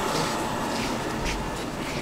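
Metro platform noise: the steady hum of the train and station, with passengers' footsteps on the stone floor.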